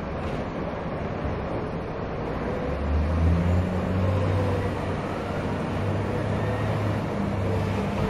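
Diesel engines of heavy log-handling machines, a log stacker and a wheeled excavator with a log grapple, running in the yard. A low engine drone swells about three seconds in, with a faint wavering whine above it.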